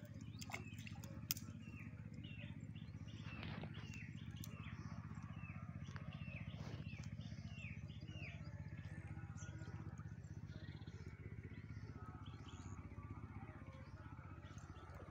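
Birds chirping, a run of short falling chirps about two a second that thins out about halfway through, over a steady low hum. A sharp click about a second in.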